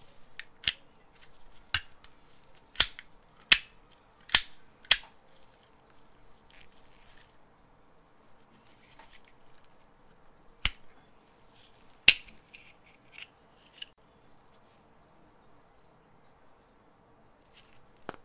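Metal clicks from a rusty IMCO Streamline 6800 lighter as it is handled and taken apart: about six quick clicks in the first five seconds, two more around ten and twelve seconds in, and one near the end.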